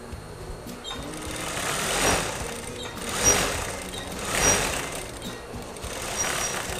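Industrial single-needle sewing machine stitching satin fabric in several short runs, each rising and falling away.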